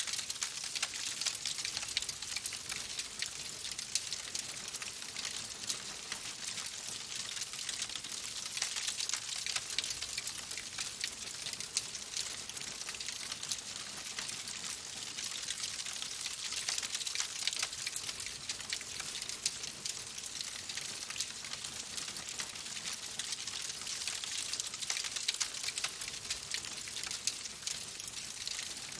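Wood fire burning in a fireplace, crackling steadily with a dense run of small snaps and hiss and an occasional louder pop.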